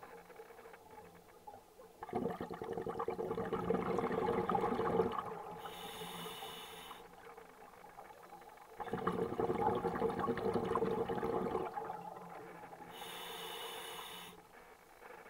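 A scuba diver breathing through a regulator, heard underwater: twice a long bubbling exhale, each followed by a shorter hissing inhale.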